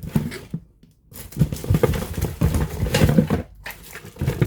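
Cardboard box and packaging being handled as parts are lifted out: irregular rustling with small knocks and clicks, starting about a second in and pausing briefly near the end.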